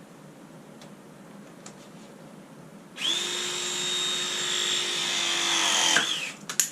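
A cordless power tool's motor starts about halfway through, runs steadily for about three seconds with an even whine, sags in pitch and stops, followed by a few sharp clicks.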